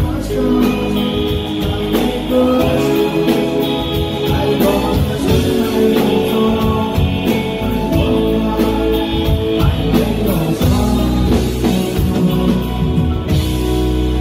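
Live rock band playing a song: strummed acoustic guitar, electric guitar and a drum kit keeping a steady beat, with a man singing.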